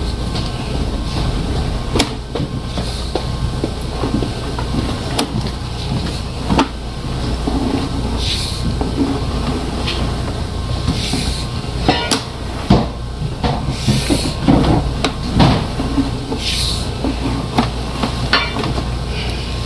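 Flex-shaft drain-cleaning machine running with a steady hum, with irregular knocks and clatters from the spinning shaft in the drain line, and short hissing bursts now and then.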